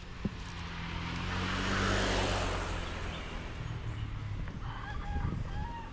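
A motor vehicle passing on the road, its engine and tyre noise swelling to a peak about two seconds in and then fading. Faint bird chirps near the end.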